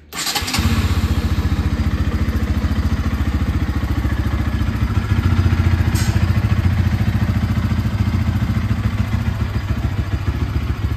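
Bajaj Pulsar NS200's single-cylinder engine starting on the button and settling straight into a steady idle.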